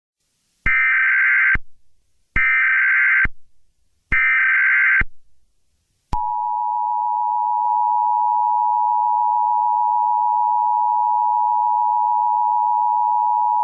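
Emergency Alert System signal: three short bursts of SAME header data noise, about a second apart, then, about six seconds in, the steady two-tone EAS attention signal, which holds to the end.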